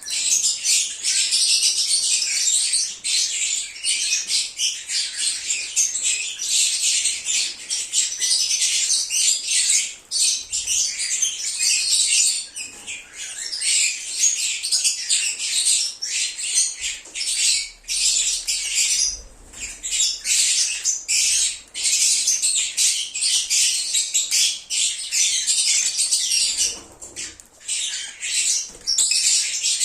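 Lovebirds (Agapornis) chattering nonstop in shrill, overlapping chirps and squawks, with a few brief lulls.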